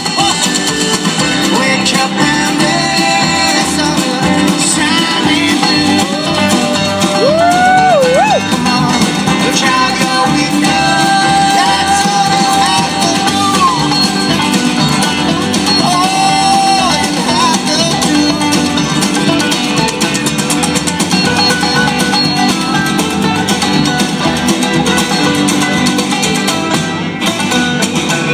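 Live acoustic string-band music with upright bass and strummed acoustic guitar, and a voice singing over it.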